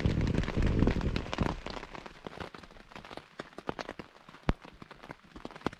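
Heavy rain, its drops striking a surface densely at first, then thinning to scattered single drips after about two seconds.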